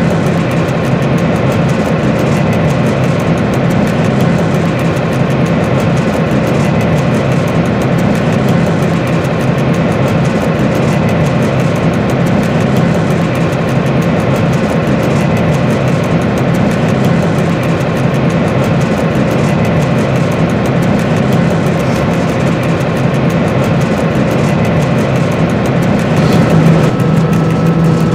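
Steady drone of a Dr12 diesel locomotive's engine and running gear, heard from inside the driver's cab as it runs along the track. Near the end the engine note shifts and a steady higher whine comes in.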